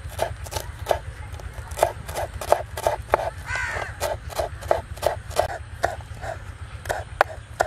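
Kitchen knife chopping fresh coriander on a wooden cutting board, steady sharp knocks about three a second. A short pitched call sounds briefly about three and a half seconds in.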